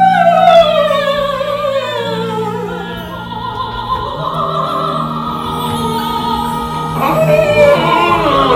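Music: an operatic singing voice with orchestral accompaniment. It enters loudly on a high note that slides downward with vibrato, and another sung phrase comes about seven seconds in.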